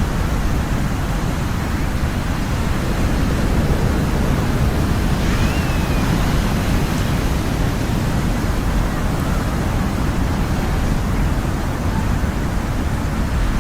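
Ocean surf: a steady, continuous rush of waves with a strong low rumble and no distinct breaks standing out.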